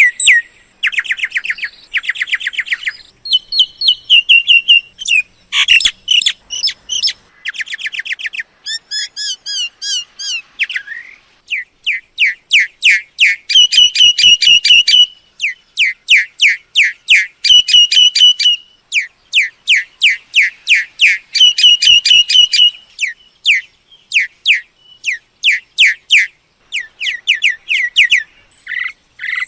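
Myna calls: loud runs of rapid, short chirping and whistled notes, delivered in clusters separated by brief pauses.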